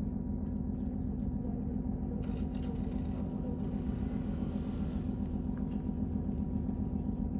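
Steady low mechanical hum and rumble, with a hiss that swells about two seconds in and fades out near five seconds.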